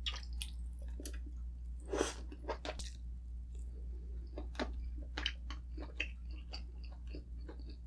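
Close-miked chewing of soft, wet food, with irregular mouth clicks and smacks and a louder cluster of them about two seconds in: someone eating sour pork soup with tender pork and vegetables.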